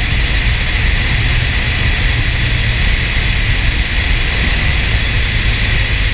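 Steady wind rushing over the microphone of a camera mounted on the hood of a Porsche 968 driving at speed, with a low rumble underneath.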